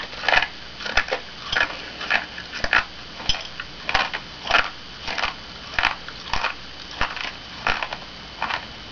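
Whole coffee beans being chewed: a steady run of sharp crunches, about one and a half a second.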